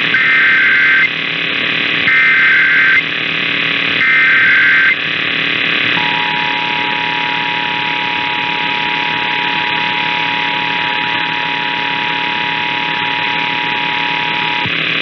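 Emergency Alert System test signal: three one-second bursts of SAME header data tones, a second apart, then the EAS two-tone attention signal (853 and 960 Hz together) held for about nine seconds and cutting off near the end. A steady hiss runs underneath.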